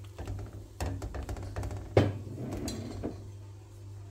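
Wooden spoon stirring chunks of beef in a pot of mineral water, knocking against the pot in a few sharp clicks, with one loud knock about two seconds in followed by about a second of clatter. A steady low hum runs underneath.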